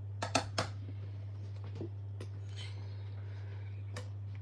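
Three quick, light clicks about half a second in, then a few fainter ticks, over a steady low hum.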